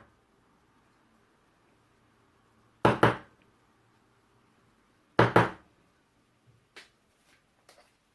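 A black pepper shaker shaken over chicken in three quick double shakes a couple of seconds apart, followed by a few faint ticks near the end.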